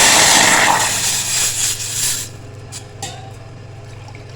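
Water running hard from a kitchen tap into a measuring cup, cut off suddenly after about two seconds, followed by a couple of light knocks.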